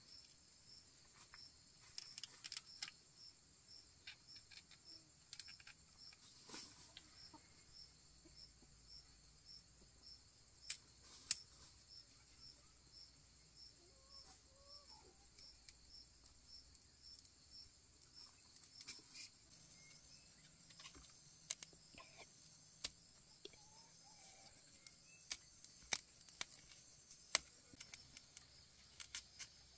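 An insect chirping steadily about three times a second over faint outdoor quiet, with scattered sharp clicks and taps, a few of them much louder. A few faint short calls come through now and then.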